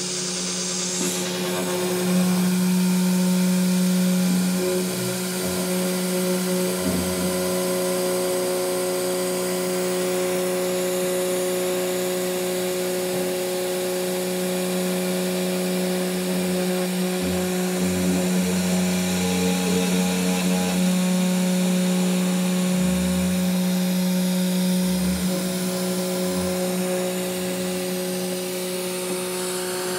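3018 CNC router's spindle milling aluminum with an end mill: a steady spindle whine over the scraping noise of the cut, louder in stretches as the bit travels back and forth. The cut is louder and chatters in one direction of travel, which the owner puts down to a spindle slightly out of line.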